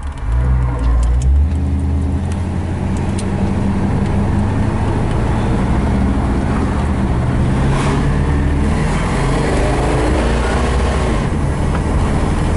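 Late-model 350 cubic-inch V8 with dual exhaust, heard from inside the car's cabin. The engine swells loudly about half a second in as the car pulls out onto the road and accelerates, then runs steadily under way.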